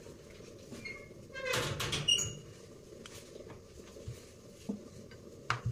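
Rolling pin working paratha dough on a board, with a brief squeaky clatter about a second and a half in and a few light knocks later, over a steady low hum.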